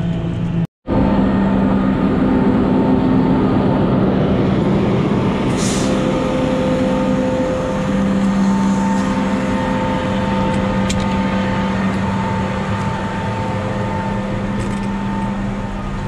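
Tractor engine running steadily, heard from inside the cab: a constant drone with a steady hum and whine. The sound drops out for a split second under a second in.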